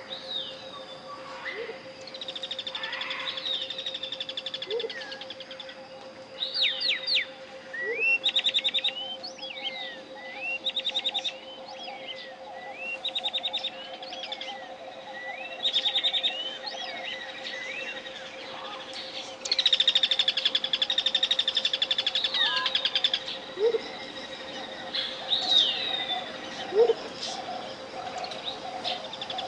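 Tropical jungle birds calling in repeated short rapid trills and downward-sweeping chirps, with a longer trill about two-thirds of the way through. Under them a steady 528 Hz pure tone is held throughout.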